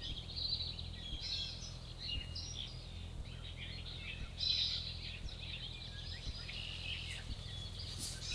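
Songbirds chirping and trilling, many short overlapping calls, over a steady low background rumble.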